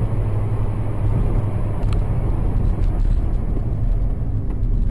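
Steady low drone of engine and tyre noise inside a moving car's cabin, as heard by a dashcam, with a faint click about two seconds in.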